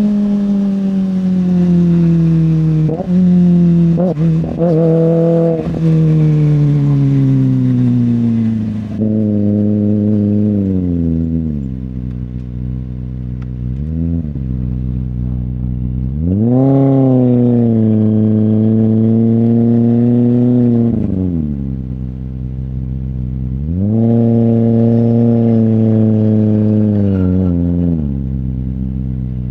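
Kawasaki ZX-25R's 250 cc inline-four through an iStunt aftermarket exhaust, being revved: the revs sink slowly at first, a few quick blips, then three longer revs that climb, hold high for a few seconds and fall back.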